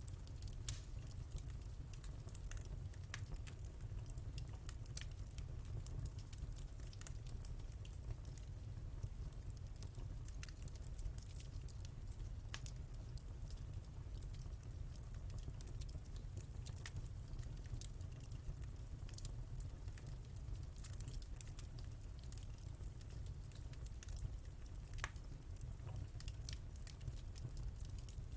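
Fireplace fire crackling: irregular sharp pops and snaps scattered through the whole stretch, over a steady low rumble.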